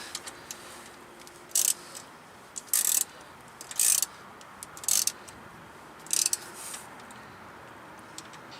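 Hand ratchet clicking in short strokes, about six bursts roughly a second apart, as a fuel-line connection is tightened.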